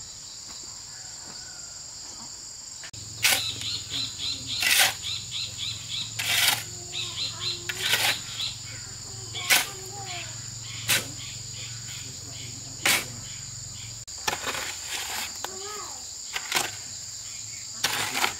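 Steady, high-pitched insect chorus, with sharp knocks every second or two and short runs of rapid chirps.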